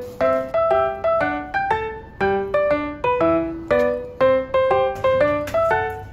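Background music: a bright melody of short notes on a piano-like keyboard, each note struck and fading, about two a second.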